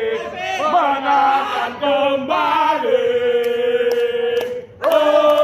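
Crowd of Indonesian football supporters chanting loudly in unison, with long held notes. The singing drops out briefly near the end, then comes back loudly.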